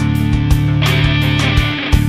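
Rock music with guitar over a held bass line and drum hits, with a brief cymbal-like wash about a second in.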